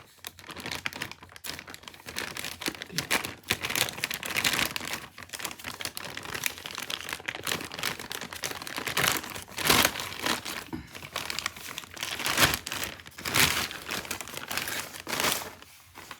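Plastic cover being crinkled and pulled off by hand, in irregular bursts of crackling and rustling.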